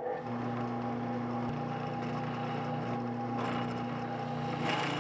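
Drill press starting up and running with a steady motor hum as the hole saw spins. About three and a half seconds in, and again near the end, short scraping bursts as the hole saw's pilot bit meets the brass sheet.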